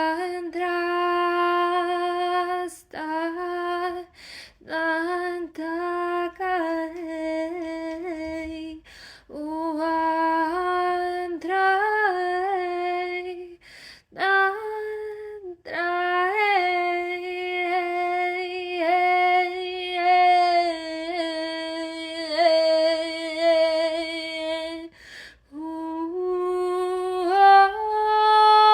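A woman's solo voice singing wordless, chant-like sustained notes that stay mostly on one pitch, with small slides and wavers, in phrases broken by short breaths. Near the end the voice steps up to a higher, louder note.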